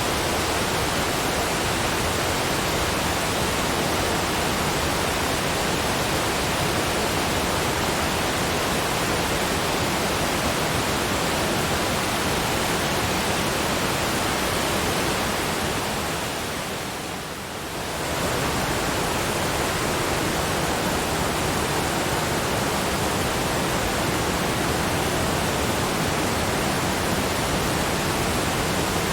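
Waterfall: a steady, even rush of falling water that briefly dips in loudness about halfway through before returning to full level.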